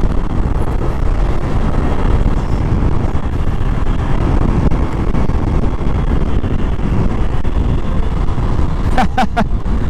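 Steady wind rumble on the microphone and road noise from a Honda Click scooter riding at speed on the highway.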